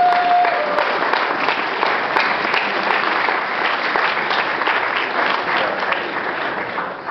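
Audience applauding after a bow, with a held whoop of cheering at the start; the clapping is loudest at first and dies away near the end.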